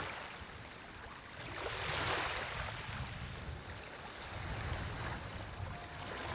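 Ocean surf washing onto a shore, a soft rush that swells about two seconds in and again near five seconds.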